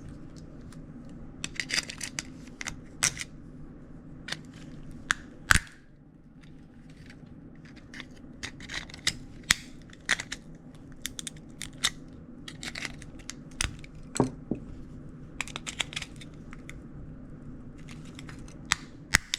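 Hard plastic toy shell being cut and pried apart by hand with a tool: irregular sharp snaps and clicks, some in quick clusters, over a low steady hum.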